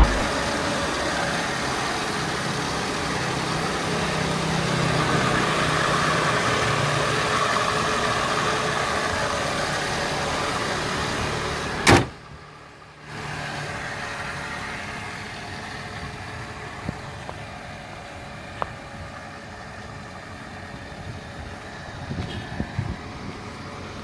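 Steady car noise, an engine running with a low hum, louder in the first half; a sharp click about halfway, after which the noise is lower, with a few faint ticks near the end.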